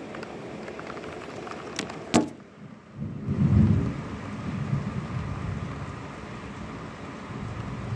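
Heavy rain pouring steadily in a thunderstorm, with a loud low rumble of thunder about three seconds in.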